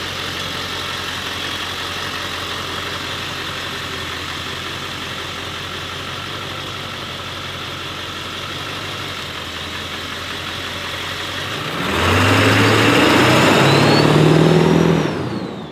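Ford F350's 7.3-litre Power Stroke turbodiesel V8 running steadily near idle. About twelve seconds in it revs up as the dually pulls away, with a rising high whistle. Its sound falls away near the end as the truck drives off.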